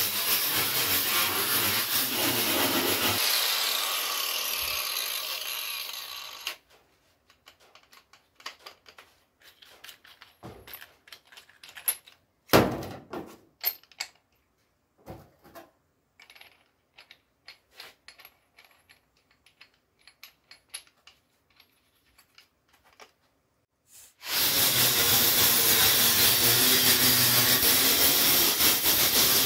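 Corded angle grinder grinding down a proud weld seam on a steel car wing, then switched off and whining down over a few seconds. Scattered clicks and knocks follow as the disc is handled, with one louder knock about halfway through. At about 24 seconds the grinder starts up again and grinds on to the end.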